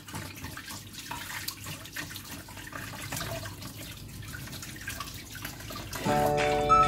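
Kitchen tap running into a stainless steel sink while hands rinse food under the stream. Background music comes in loudly about six seconds in.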